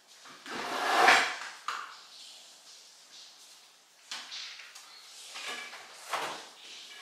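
Kitchen handling clatter: a loud rattle about a second in, then a sharp knock and several shorter knocks as things are moved and set down, with a drawer or cupboard shutting.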